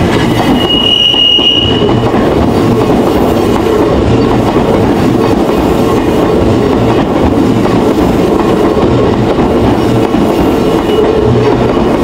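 Odakyu Line electric commuter train rolling past close by, a steady loud rumble with irregular clatter from the wheels over the rail joints. A brief high wheel squeal sounds about a second in.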